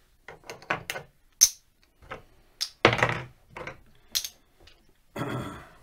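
Casino chips clicking and clacking as they are handled and stacked by hand: a string of sharp clicks, the loudest about a second and a half in, with longer rattles of chips about three seconds in and near the end.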